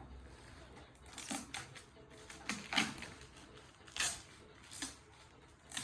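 Gift wrapping being torn and crinkled open by hand, in a run of short, sharp rips and rustles.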